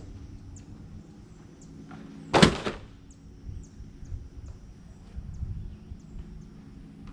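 Diesel engine of a small construction machine running steadily at a low hum. About two and a half seconds in there is one loud, brief whoosh.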